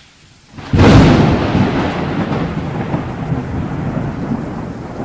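Thunderclap: a sudden crack under a second in, followed by a long rumble that slowly fades.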